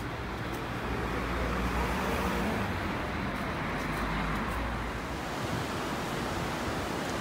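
Street ambience: a steady rushing wash of road traffic, with a low rumble that eases off about five seconds in.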